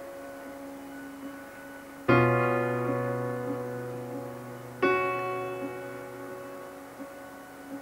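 Background music: slow piano chords, one struck about two seconds in and another near five seconds, each ringing on and slowly fading.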